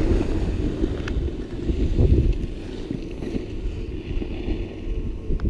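Wind rushing over the microphone of a camera worn while skiing downhill, with skis hissing over packed, groomed snow. A couple of faint clicks stand out, about a second in and near the end.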